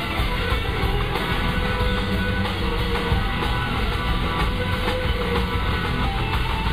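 Live blues-rock band playing, electric guitar over drums and bass, recorded from the audience with the hall's echo.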